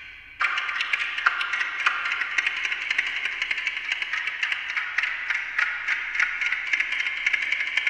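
Amplified ticking of a Westclox Silver Bell Monogram wind-up alarm clock, multiplied by a digital delay system into rapid, overlapping echoed ticks. About half a second in it suddenly gets louder and denser, and then keeps up a steady mechanical ticking texture.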